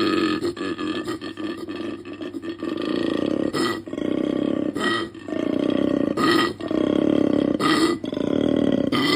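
Male koala bellowing: a strange, resonant low call that begins as a fast run of pulses, then settles into long drawn phases of about a second each, broken by short gaps at a steady rhythm. It is the call koalas use to communicate and to attract a nearby female.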